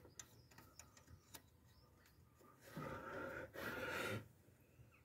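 A few light metallic clicks of a spanner against engine parts in the first second or so, then two heavy breaths, each under a second long, about three seconds in.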